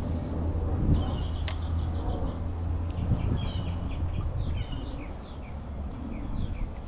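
A bird calling in a run of short, falling high notes, two to three a second, over a low steady rumble that fades partway through, with one sharp click early on.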